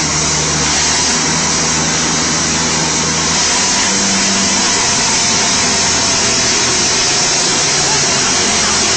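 Two tractors' diesel engines running hard under full load as they pull against each other, chained back to back. Their engine note steps up about four seconds in, under a steady loud hiss and crowd noise.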